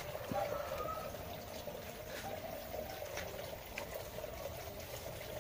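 Steady trickle of water running through a hydroponic growing system, with a few faint clicks and rustles over it.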